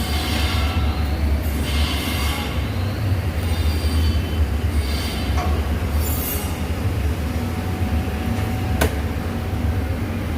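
Steady low machine hum in a metal workshop, with several short bursts of high hissing or scraping and a sharp click near the end.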